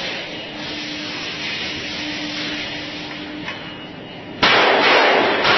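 Retay PT23 9 mm blank pistol fired in rapid succession in an enclosed room, the shots running together with their echo into a continuous loud crackle. It starts abruptly about four and a half seconds in, after a quieter stretch of faint hum with a single click.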